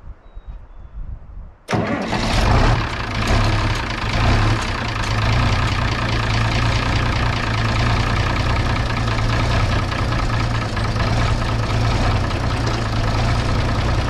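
International 1256 tractor's turbocharged six-cylinder diesel starting on a freshly fitted battery: it fires up suddenly about two seconds in and then runs steadily.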